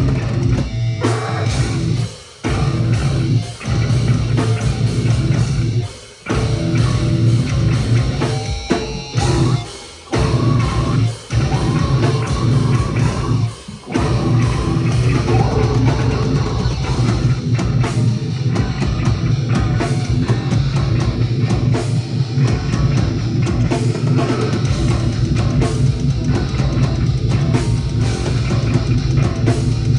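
Heavy rock music with distorted guitar and drum kit, broken by a few short stops in its first half, then playing on without a break.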